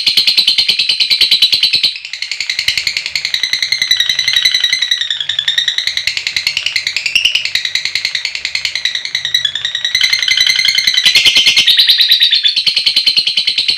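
Lovebird 'ngekek': a long, rapid, evenly pulsed chattering trill at a high pitch. It breaks off about two seconds in into quieter warbling chirps that bend up and down in pitch, and the fast trill returns about ten seconds in.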